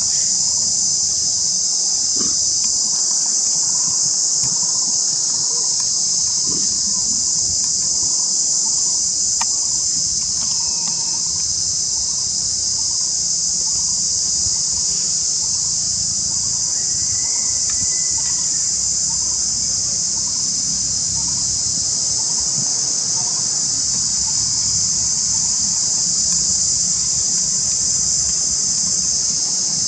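Steady, loud, high-pitched insect chorus that keeps up without a break.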